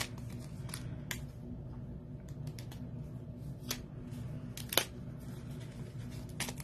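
Die-cut cardstock pieces being popped out of their sheet by hand: a few sharp, separate paper snaps and clicks, the loudest about five seconds in, over a steady low hum.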